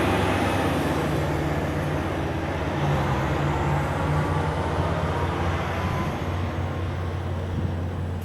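Steady engine hum and tyre and road rush of a vehicle driving along a freeway, easing off slightly in loudness.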